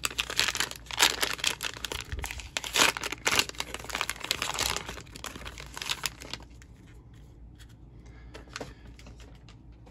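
Plastic wrapper of a trading-card pack being torn open and crinkled by hand, a dense crackling and tearing for about six seconds. After that it goes much quieter, with only a few faint ticks as the cards are handled.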